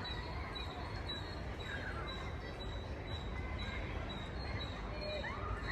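Outdoor ambience with birds calling: short high chirps repeat about twice a second, a few sliding calls come in, and a steady low rumble sits underneath.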